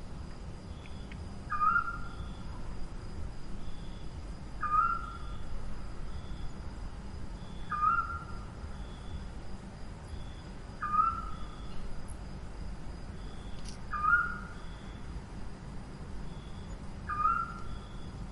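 An owl calling over and over: a short call with a sharp, slightly higher start dropping to a held note about half a second long, repeated six times at even intervals of about three seconds.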